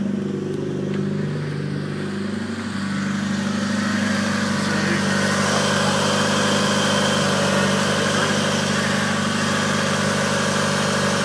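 Car engine idling from a cold start with its exhaust fallen off, running unsilenced and loud. It runs steadily, a little louder from about three seconds in.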